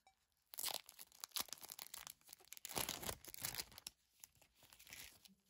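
Crinkly plastic packaging being handled and torn open, in dense crackling bursts for about three seconds that thin out near the end.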